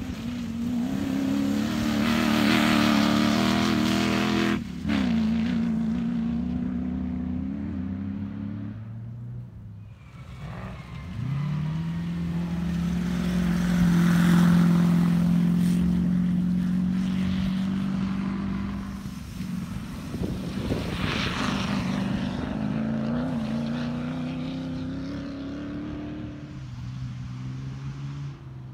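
Off-road comp safari 4x4 engines revving hard as they drive across a muddy field, heard as a run of cars one after another. The engine note climbs and falls with gear changes and throttle, and near the middle one car holds high revs steadily for several seconds.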